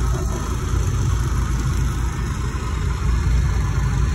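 Fishing boat's engine idling steadily, a low rumble with no change in pace, while the crab-pot line is hauled aboard.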